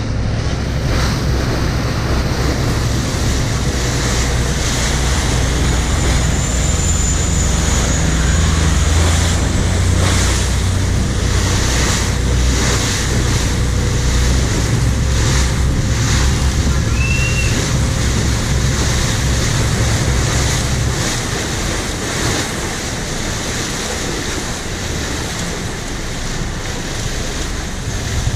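Bangkok river taxi boat under way: its engine runs with a loud low drone while water rushes and splashes along the hull and wind buffets the microphone. About two-thirds of the way in the engine drops back as the boat eases in alongside a pier.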